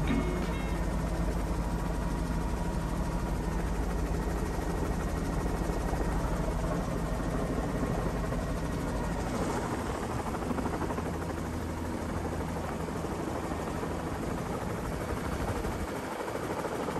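Helicopter running steadily as heard from inside its open cabin, a low rapid rotor beat under a broad rushing of engine and wind, while it descends and hovers over the pad to land. It eases slightly near the end.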